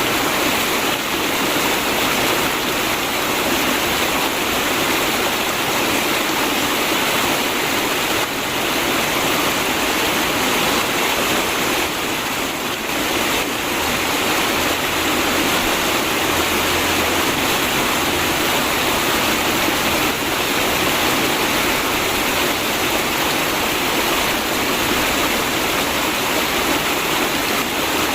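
River water flowing steadily: a constant, even rush.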